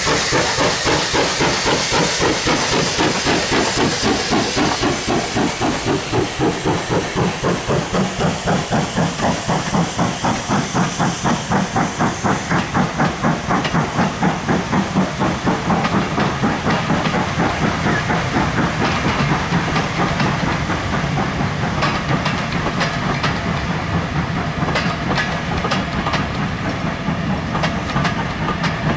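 GWR Hall-class steam locomotive 4930 "Hagley Hall" working hard past, its exhaust beating out a rapid, even rhythm over steam hiss as it pulls away from a speed restriction. The beats fade as the coaches roll by, and the wheels click over the rail joints from about two-thirds of the way through.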